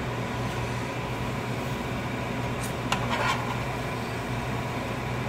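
Steady hum of a kitchen range-hood exhaust fan. A few light clinks of a spoon against a frying pan come about three seconds in.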